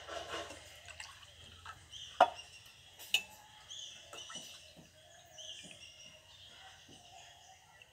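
Water trickling in a thin stream from a steel tumbler into a glass tumbler, with two sharp clinks about two and three seconds in.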